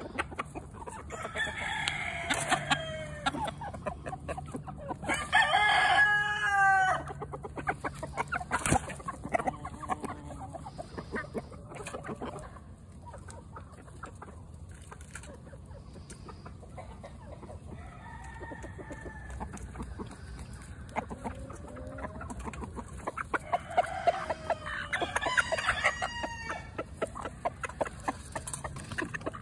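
Chickens clucking, with long falling rooster crows about two seconds in, around six seconds, and again near the end. Between the calls come many short sharp taps as they peck at a metal pan of boiled crawfish.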